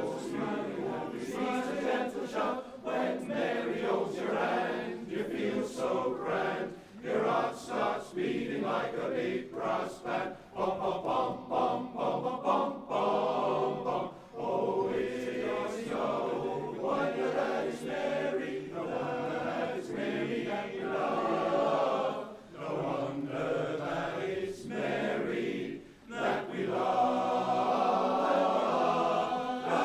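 A chorus of about 44 singers singing a cappella, swelling into a loud held chord near the end.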